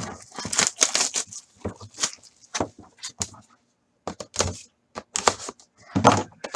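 Plastic shrink wrap crinkling and tearing as it is pulled off a sealed Panini Prime hockey card box, with the cardboard box handled in the hands. It is a run of irregular crackles and rustles, with one louder burst near the end.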